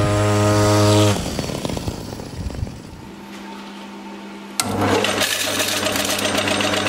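Small 42cc petrol engine of a homemade scooter running steadily with an even buzz, cut off about a second in. About four and a half seconds in, a metal lathe starts abruptly and runs with a steady mechanical noise as its chuck spins.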